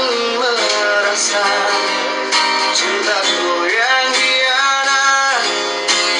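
Instrumental passage of a song: strummed acoustic guitar under a melody line, with a few notes held for about a second in the second half.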